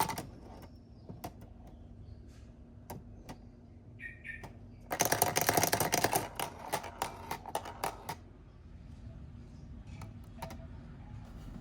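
Marbles clicking and clattering along a plastic marble-run track: scattered single clicks, then a dense run of rapid clicks about five seconds in lasting just over a second, trailing off into spaced clicks.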